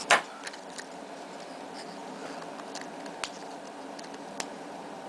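Small clicks and ticks of a knife tip prying the microphone out of a Bluetooth headset's plastic housing: one sharp, loud click just after the start, then a few faint ticks scattered through, over a steady low hum.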